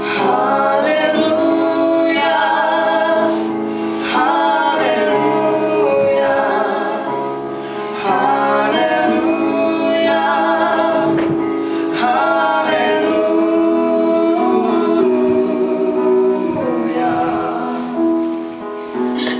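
Male and female voices singing a slow song into microphones over sustained chords from a Yamaha electronic keyboard.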